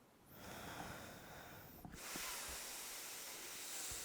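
Faint, slow breathing through the nose during a yoga stretch: one long breath of about a second and a half, then a longer, slightly louder breath of about two and a half seconds.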